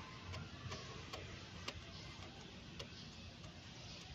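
Faint, irregular light clicks and ticks, a few a second with some gaps, over a low steady hum.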